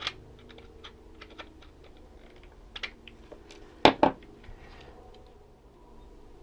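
Flush cutters snipping a metal lead with a sharp click, then light clicks and taps of hands handling the plastic RC tank chassis and its switch. About four seconds in come two loud clacks close together as the cutters are set down on the workbench.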